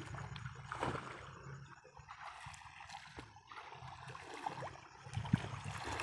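Shallow muddy water sloshing and splashing as people wade barefoot through it, with scattered splashes over a low steady hum.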